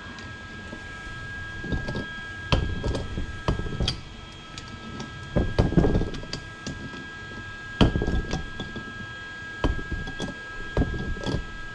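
Irregular knocks and clunks, several a few seconds apart, of tools and parts being handled and set down, over a faint steady hum with a thin high whine.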